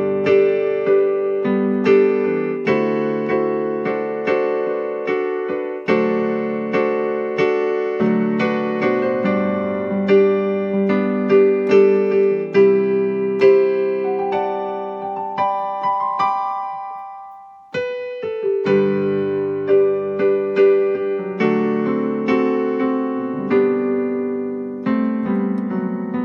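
Keyboard playing a slow hymn in full chords, a new chord struck roughly every second. About two-thirds of the way through, the playing fades out and stops briefly, then starts again.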